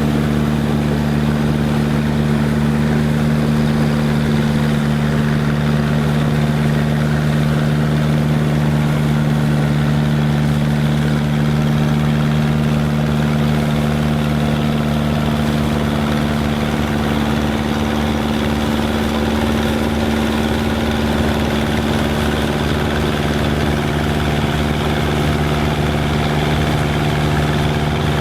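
Farm machinery engine running steadily at a constant speed.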